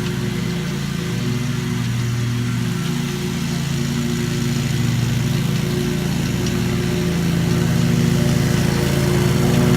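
Lawn mower engine running steadily under load while mowing, growing a little louder toward the end.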